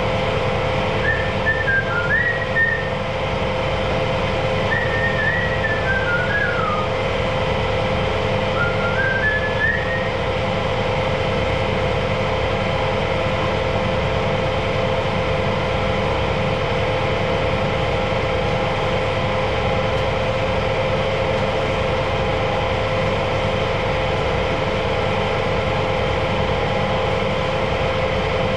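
A person whistling a tune in three short phrases near the start, over the loud, steady drone of a machine motor running without a break.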